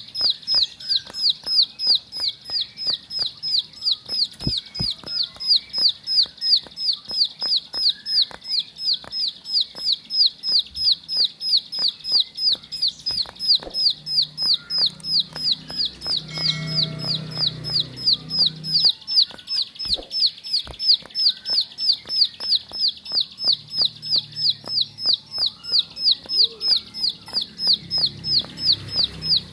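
Plain prinia (ciblek sawah) singing a fast, even series of high chirping notes, about three a second, without a break.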